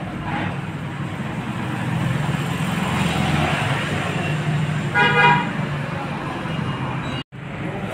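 Road traffic passing steadily, with a vehicle horn sounding once briefly about five seconds in.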